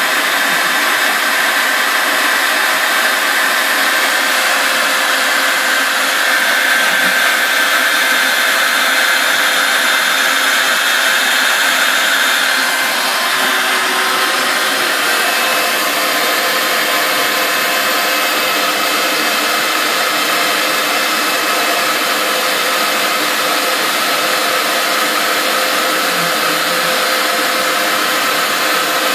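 Router spindle on a home-built CNC mill cutting pink foam, with a shop vacuum sucking up the dust at the bit: a steady, even machine noise with a high whine on top. The tones shift slightly about halfway through.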